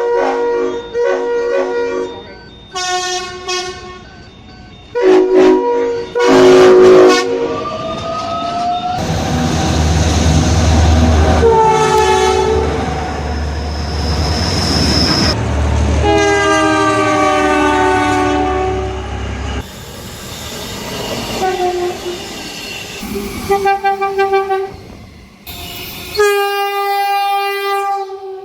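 Locomotive air horns sounding a series of chord blasts as trains pass, the pitch sliding down as each goes by (Doppler shift). A low rumble of a passing train runs under the horns through the middle, and the horn passages change abruptly from one train to the next.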